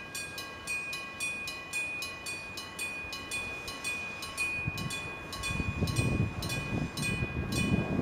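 Electric level-crossing bell ringing: an electromagnetic hammer strikes it in rapid, even blows, about three a second, each leaving a ringing tone. From about five seconds in, the low rumble of a passing train rises beneath it.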